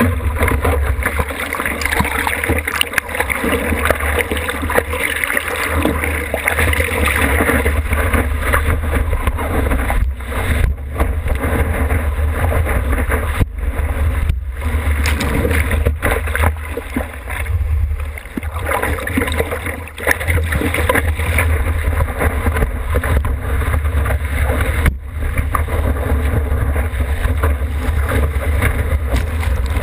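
Seawater rushing and splashing over a surfboard and the GoPro mounted on its nose, first as the surfer paddles, then as the board rides a breaking wave, with a deep buffeting rumble and a few brief dropouts.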